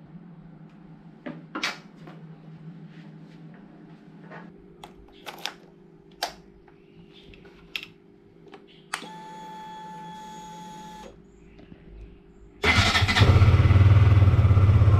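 Scattered clicks and knocks, then a steady electric buzz for about two seconds as the ignition is switched on. About 12.7 seconds in, the KTM Duke 125's single-cylinder four-stroke engine starts suddenly and runs loud and steady at idle.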